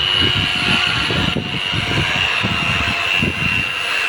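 Electric polisher running at speed with a steady high whine, buffing wax onto a boat, with an uneven low rumbling underneath.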